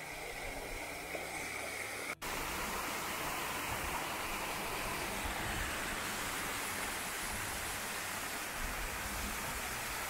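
Steady rush of water from a small river cascade, breaking off for an instant about two seconds in.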